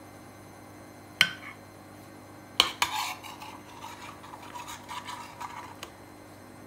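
Metal serving spoon clinking twice against the cookware, a second or so apart, then scraping and stirring through thick gravy for a few seconds.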